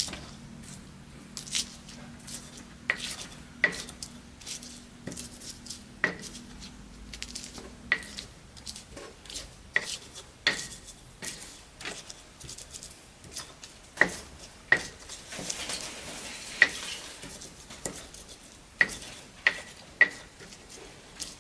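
Kitchenware clinking and knocking as bowls, plates and utensils are handled, with sharp, short-ringing clinks every second or two. There is a brief soft rustle partway through.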